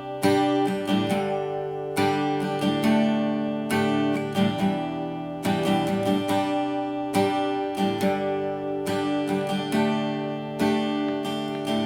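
Guitar strummed in a steady rhythm, its chords ringing between strokes, recorded through an AKG Lyra USB microphone set to its front-and-back pickup mode.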